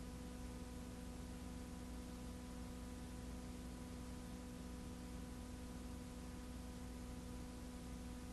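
Faint steady hiss with a constant electrical hum and a few steady tones, unchanging throughout; no music or other sound stands out.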